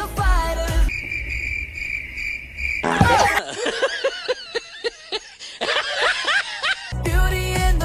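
A cricket chirping sound effect, a steady pulsing high trill lasting about two seconds, cut in between bits of pop music. After a sudden swoosh it gives way to wavering, squeaky voice-like sounds, and the music comes back near the end.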